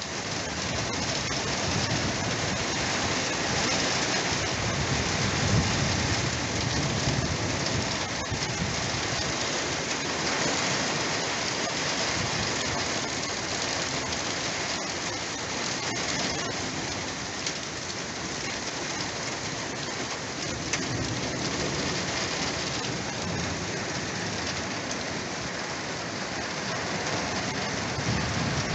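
Heavy rain pouring steadily in a thunderstorm, with a low rumble swelling about five to eight seconds in.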